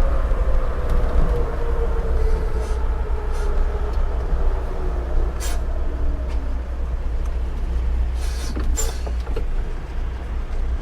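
Truck engine and road noise heard from the cab as the truck slows: a steady low rumble with a whine falling slowly in pitch over the first six seconds, and a few short hisses about eight to nine seconds in.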